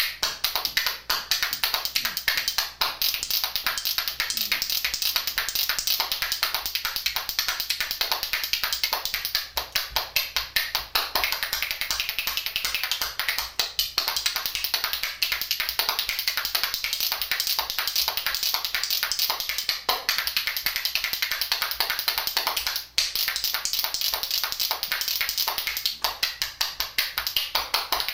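A pair of spoons played as a folk rhythm instrument, clacked rapidly between hand and leg in a fast, steady clattering beat, with a short break about five seconds before the end.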